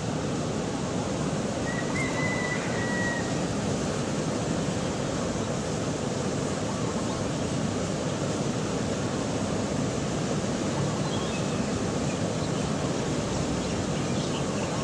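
Steady roar of heavy ocean surf breaking in long lines below, heard from a height. A brief high thin note sounds about two seconds in.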